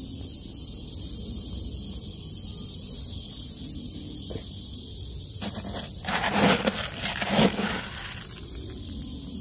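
Steady outdoor hiss over a low rumble. About six to eight seconds in come a few loud rustling scrapes, close handling noise as a plastic bucket is carried next to the phone.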